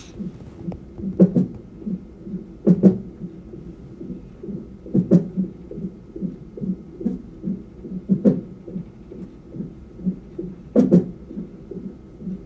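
Fetal Doppler heart monitor picking up an unborn baby's fast heartbeat, soft whooshing pulses about two and a half a second. Louder knocks break in every two to three seconds: the baby hiccuping in the womb.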